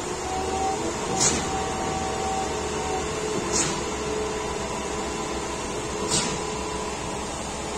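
Truck-mounted concrete pump running steadily while pumping concrete through its boom, with a short hissing stroke about every two and a half seconds as the pump cycles.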